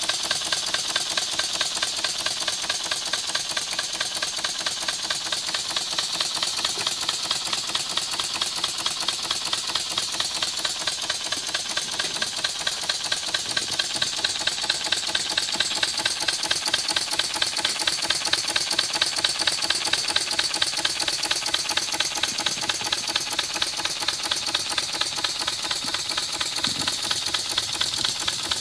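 Model horizontal steam engine running at a steady speed: a fast, even beat of its stroke over a steady hiss.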